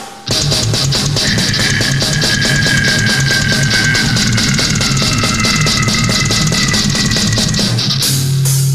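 Heavy metal recording kicking in abruptly: fast, driving drumming under distorted guitars, with a high guitar line sliding slowly down. Near the end the fast beat stops for a held low chord.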